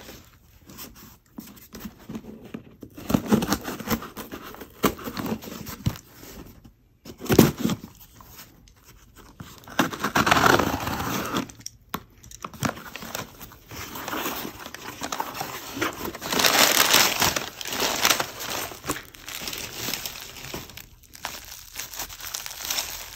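A taped cardboard shipping box being handled and torn open, with irregular bursts of tearing, scraping and knocks, then plastic bubble wrap crinkling in the hands near the end.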